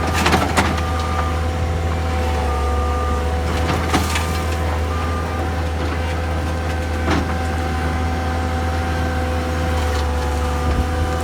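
Skid steer loader engine running steadily under load with a steady hydraulic whine, while its stump bucket gives sharp knocks and cracks near the start, about four seconds in and about seven seconds in. A short high beep comes and goes over it.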